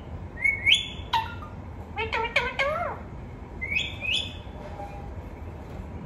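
Caged rose-ringed parakeet giving short, sharp chirping calls in three groups, with a quick run of falling calls about two seconds in. It falls quiet after about four and a half seconds.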